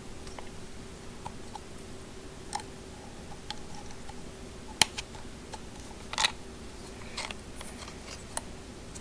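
Scattered small clicks and light rattles of screwdriver bits being handled and pushed into a bit holder, the sharpest click about five seconds in, over a faint steady hum.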